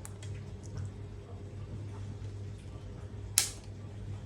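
A steady low hum, with a single sharp click about three and a half seconds in.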